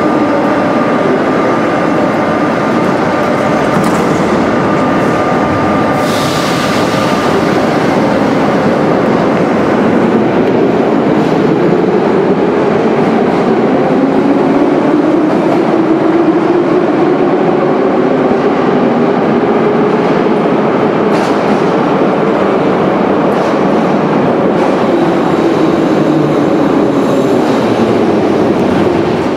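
Metro train running at a station platform: a loud, steady rumble of wheels and motors, with motor whines that glide down and then up in pitch. A thin steady whistle sounds over it for the first several seconds.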